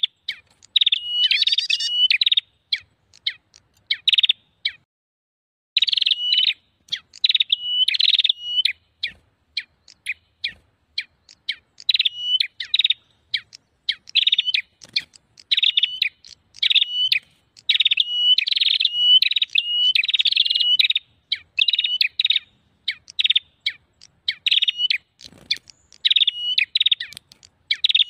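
Prenjak (a small Indonesian warbler of the prinia and tailorbird group) giving loud, agitated chattering calls, as used in a lure recording to draw other prenjak in. Fast repeated phrases run one after another with brief pauses, one about a second long near the start.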